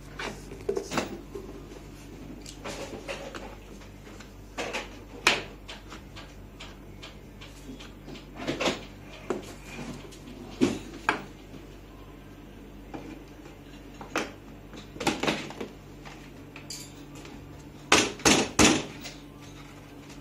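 Hard plastic body parts of a toy ride-on motorbike being handled and pressed into place: scattered knocks and clicks, with three loud knocks in quick succession near the end.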